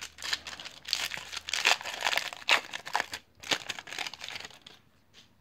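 Foil wrapper of a 1993 Upper Deck baseball card pack crinkling and tearing as it is ripped open by hand and the cards are pulled out. The crackling is irregular and stops near the end.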